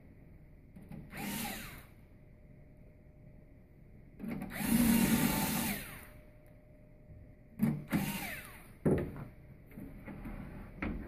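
Hitachi cordless screwdriver with a Phillips bit driving screws into a sheet-metal casing, running in three short bursts, the middle one the longest and loudest, the motor's pitch rising and falling in each run. A few sharp clicks of handling come between the runs.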